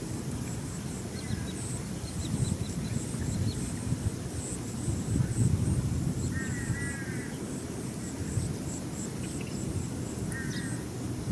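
A bird calling twice: a short run of notes about six seconds in and a briefer one near the end. Behind it are steady high-pitched insect chirps and a low rumble.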